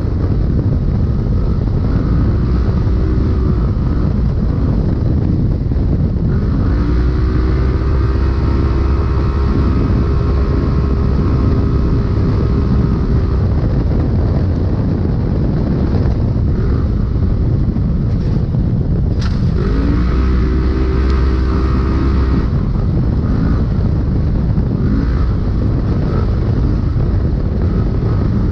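A Polaris Pro Stock UTV's engine running hard at race pace, heard from inside the cab over heavy low rumble. Twice it holds a steady high note for several seconds, about a quarter of the way in and again about two-thirds through, with a single sharp knock just before the second.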